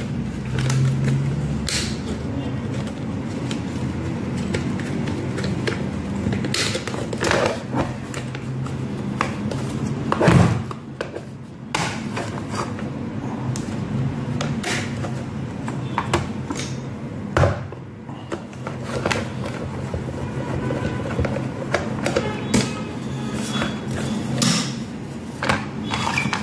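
Hard plastic parts of an electric kettle clicking and knocking as the bottom cover is fitted back and the kettle is turned over, with the sharpest knocks about ten seconds in and again past the middle. A steady low hum runs underneath.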